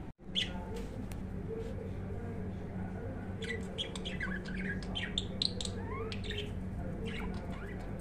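Budgerigar chirping and warbling: one chirp just after the start, then a quick run of short chirps and rising and falling calls through the middle, and a few more near the end, over a steady low hum.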